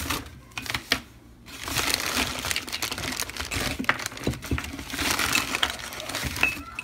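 Crinkling and rustling handling noise, with scattered sharp clicks and crackles throughout.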